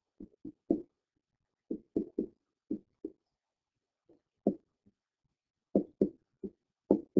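A stylus tapping and knocking on a tablet screen while writing by hand: about fifteen short dull taps in an uneven rhythm, with a pause of about a second and a half in the middle.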